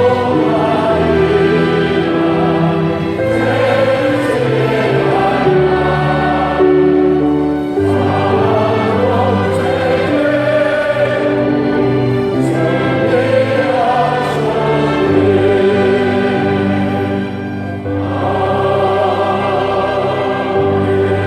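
Choir singing a hymn with instrumental accompaniment, in long held phrases with short breaths between them.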